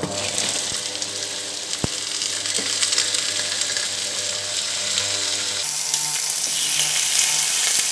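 Raw chicken pieces sizzling in hot oil in a frying pan with onions, garlic and lemongrass, a steady sizzle that grows a little louder in the second half. A single small click about two seconds in.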